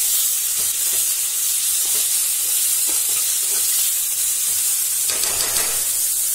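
Chopped food sizzling steadily in hot oil in a kadai, stirred with a spoon that scrapes against the pan now and then; the scraping gets louder for about a second about five seconds in.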